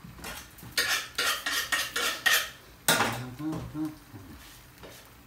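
Metal kitchen utensils clattering: a quick run of rattling knocks for about two seconds, then one sharp knock about three seconds in that rings briefly.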